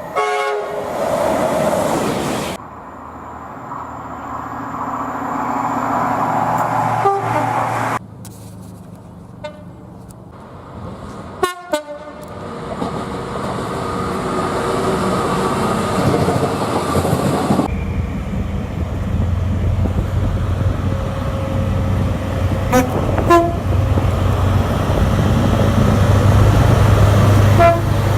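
Trains passing and sounding their horns, in short clips joined with abrupt cuts. A burst of sharp clicks comes near the middle, and a low steady rumble grows louder through the last third.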